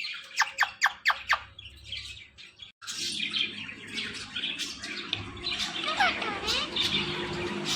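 Pet parrot chirping: a quick run of about five sharp, downward-sweeping chirps in the first second and a half, then, after a brief break, continuous chattering and squawking.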